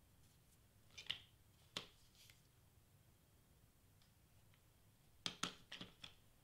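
Faint room tone broken by light clicks and taps of paper fringe pieces and a hot glue gun being handled on a cutting mat: two clicks about a second in, then a quick cluster of four or five near the end.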